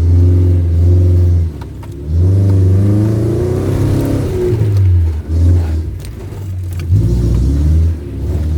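Off-road 4x4's engine revving hard in about four surges, rising and falling in pitch with short dips between, as the stuck vehicle strains to pull itself out on a difficult stretch.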